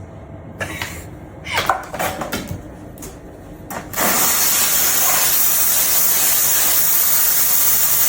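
A few clicks and knocks as a coffee machine is handled, then, about halfway through, the machine starts a loud, steady hiss like steam that runs on.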